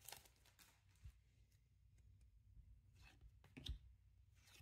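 Near silence with a few faint clicks and rustles of trading cards being slid and flipped through by hand, the clearest a little after three and a half seconds in.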